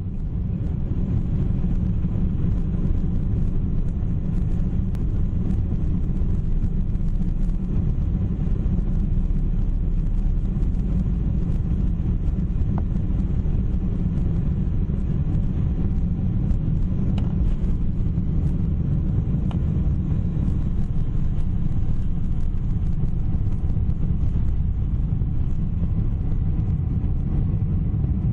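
Cabin noise of a Boeing 747-400 at takeoff thrust, heard from a seat over the wing during the takeoff roll and climb-out: a deep, steady rumble.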